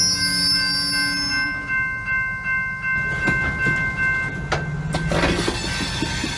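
Loaded covered hopper cars of a freight train rolling past, their wheels knocking over rail joints now and then, with a steady high-pitched wheel squeal held over the rumble.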